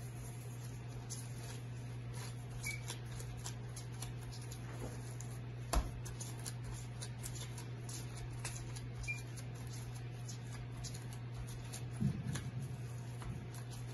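Hand in a plastic glove kneading oiled yeast dough in a glass bowl: soft sticky squelches and glove rustles, with one sharp click about six seconds in. A steady low hum runs underneath.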